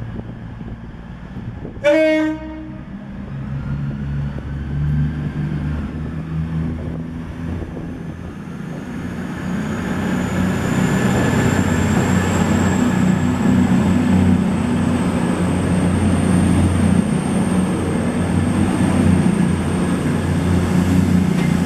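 CrossCountry Voyager diesel multiple unit giving one short horn blast about two seconds in. Its underfloor diesel engines and wheels on the rails then grow louder as it runs close past along the platform, with a faint high whine rising slowly in pitch.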